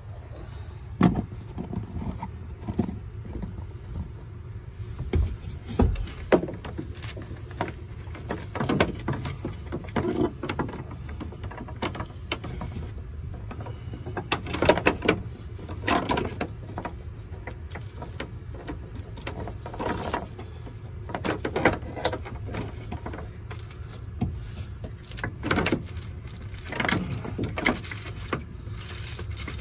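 Irregular knocks, clicks and rustling from wiring being handled and routed inside a van, over a steady low rumble.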